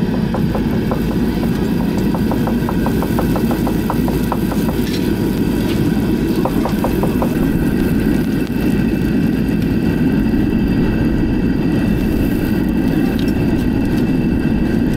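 A steady low mechanical drone, like a motor running, with a fast run of light ticks, several a second, for the first few seconds and a shorter run about six and a half seconds in.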